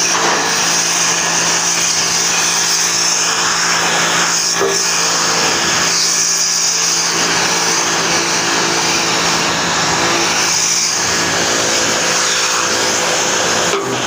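High-pressure spray lance blasting the dusty condenser coil of a Carrier rooftop air-conditioning unit: a loud, steady hiss of the jet over the even hum of the machine driving it.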